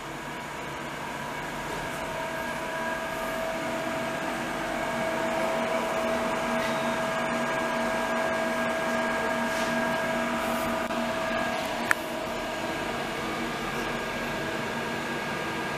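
Morton 830 PCB preheater running: a steady whir from its cooling fans, with several thin whining tones, growing louder over the first few seconds. About twelve seconds in there is one sharp click, and one of the whining tones stops with it.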